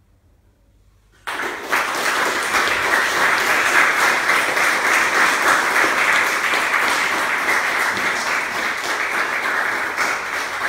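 About a second of near silence, then an audience suddenly breaks into steady applause at the end of the performance.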